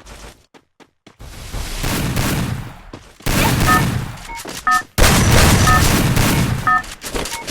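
Rapid gunfire from a shooting video game in several long bursts, with short electronic beeps between and over them.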